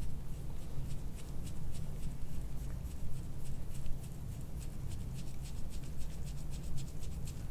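Metal soft-tissue scraping tool stroked quickly and repeatedly over the skin of the neck, making short, dry scratching strokes at a few per second that come faster in the second half.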